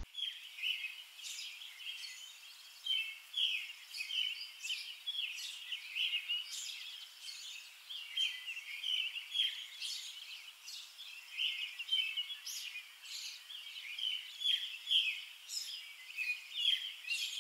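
Birds chirping and singing: a steady, overlapping stream of short high-pitched calls.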